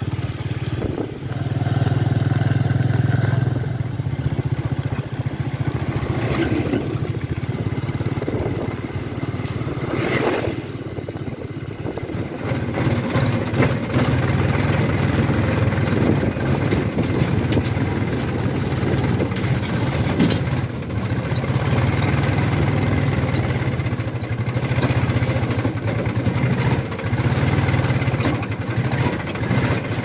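A motorcycle engine running as it rides along a dirt road, then a Mahindra 275 DI tractor's three-cylinder diesel engine running steadily, heard from the driver's seat as it is driven.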